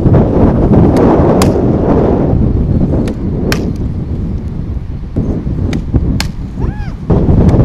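Strong wind buffeting the microphone, with several sharp cracks from softball batting practice: the bat striking the ball and the ball smacking into the catcher's mitt.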